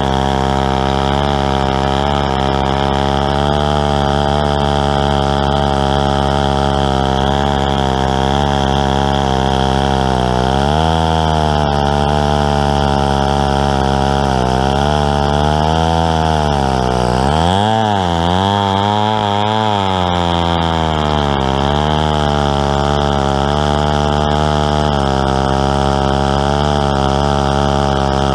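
Stihl 090 two-stroke chainsaw, run untuned, running at high speed under load in a chainsaw mill ripping a large log. Its pitch holds mostly steady but sags and recovers a few times, most deeply about two-thirds of the way through.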